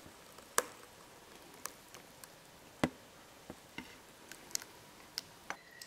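Thick cherry milkshake poured from a blender jar into a glass dessert cup: a quiet pour broken by sharp little clicks and pops at irregular intervals.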